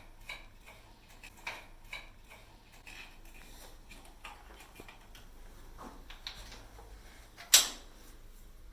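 Handling noise: scattered light clicks and taps, with one sharp knock about seven and a half seconds in.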